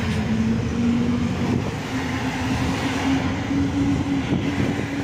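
Bus engine and road noise heard from inside a moving bus, with a steady engine note that climbs slowly in pitch.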